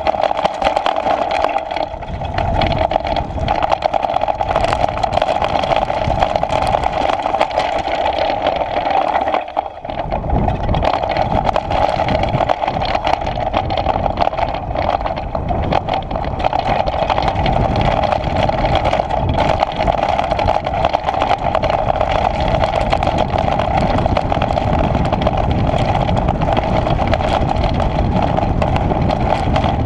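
Mountain bike rolling fast down a dirt and stone track: a steady whirring buzz from the bike and tyres, with rattles over the stones and wind buffeting the camera. After a brief dip about ten seconds in, the low rumble grows heavier.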